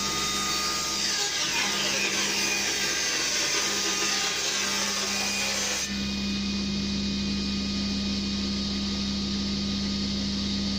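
Table saw with a rip blade set low, cutting along a thin plywood panel for about the first six seconds, then running on free with no load, a steady hum.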